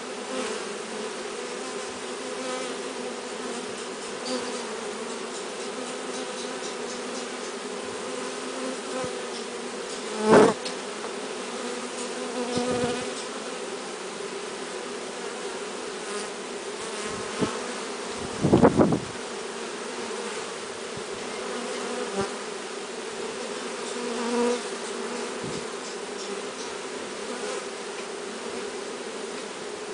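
A honeybee swarm buzzing in a steady, dense hum. A single sharp knock comes about a third of the way in, and a brief louder swell of buzzing about two-thirds in.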